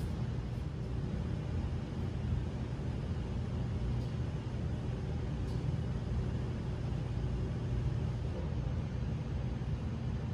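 Steady low background rumble with no distinct sounds from the exercise.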